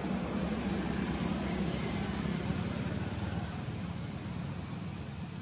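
Low steady rumble of vehicle traffic, fading a little toward the end.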